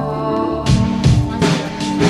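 Background music: a held keyboard chord, then a drum beat with kick drum and cymbals comes in under it a little under a second in.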